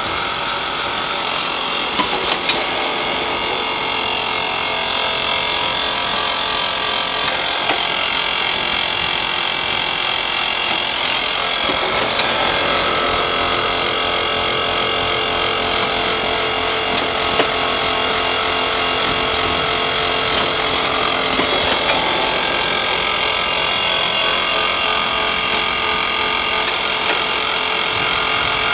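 Vacuum coffee powder packing line running: a steady mechanical whir with several constant tones, broken by scattered sharp clicks from the working mechanisms.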